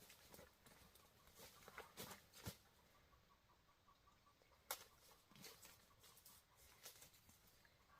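Near silence with faint scattered clicks and rustles, and one sharper click a little past the middle.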